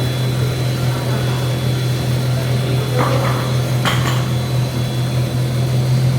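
Plastic recycling extruder driven by a 20 HP electric motor, running with a steady low hum. A short rattle comes about three seconds in, then a sharp metallic knock about a second later.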